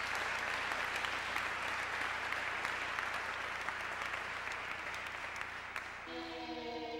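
Audience applauding, easing off slightly. About six seconds in, music with long held notes starts under the clapping.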